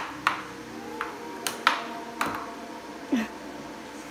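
Plastic puck on a Triumph Overtime air hockey table clacking off the mallets and rails, about half a dozen sharp, irregularly spaced hits. A steady hum from the table's air blower runs underneath.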